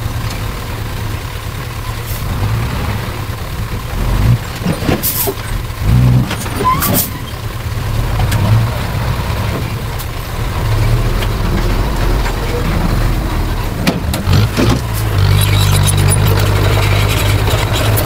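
Diesel engine of heavy earthmoving machinery running steadily, with a few sharp knocks between about four and nine seconds in. The engine gets louder at about fifteen seconds and stays there.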